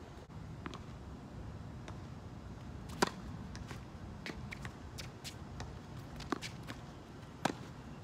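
Tennis rally on a wet hard court: sharp pops of rackets striking the ball, the loudest about three seconds in and two more near the end, with fainter ball bounces and hits from the far end in between.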